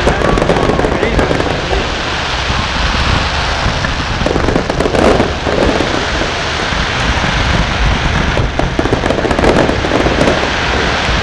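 Fireworks display going off: a dense, unbroken run of bangs and crackling that never pauses.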